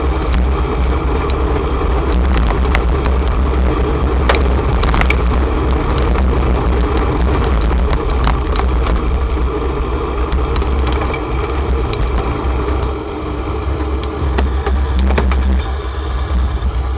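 Wind rushing over the microphone of a camera on a moving bicycle, with road rumble and frequent small clicks and rattles.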